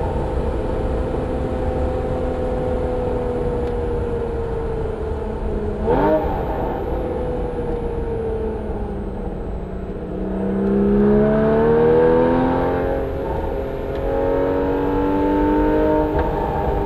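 Porsche 981 Cayman S's 3.4-litre flat-six running through a Soul Performance exhaust under way. The pitch holds steady, jumps in a quick blip of revs about six seconds in, and falls off for a few seconds. It then rises under acceleration from about ten seconds, loudest around twelve seconds.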